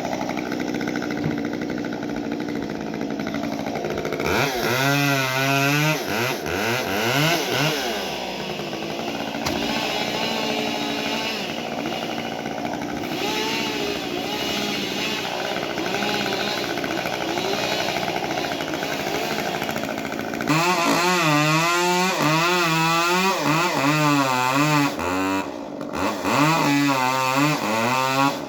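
Chainsaw engine revving again and again, its pitch rising and falling as the throttle is worked, in two loud spells with a quieter stretch of steadier running in between.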